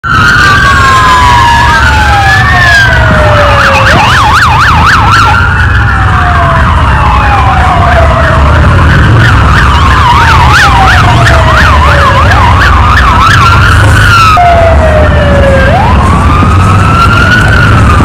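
Two or more police car sirens sounding at once. They mix slow rising-and-falling wails with a fast yelp through the middle, over a steady low rumble.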